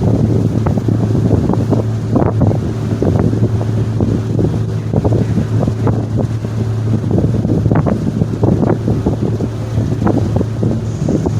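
Wind buffeting the microphone over the steady low drone of the Staten Island Ferry's engines.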